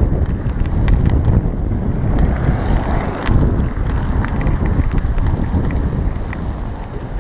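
Wind buffeting the microphone of a bike-mounted action camera while riding, a heavy low rumble broken by a few sharp clicks and rattles.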